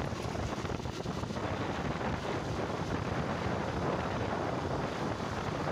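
Steady wind rush on the microphone of a moving motorcycle, with the bike's engine and road noise running underneath.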